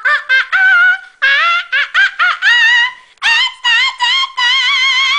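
A girl's voice singing a wordless tune very high and squeaky, in short broken phrases, then holding one long wavering note near the end.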